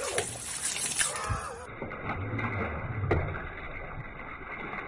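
Liquid bursting out of a freshly opened plastic jug under pressure: a sudden hissing gush and spray that splatters over a person and the wall. The hiss dies away after about a second and a half.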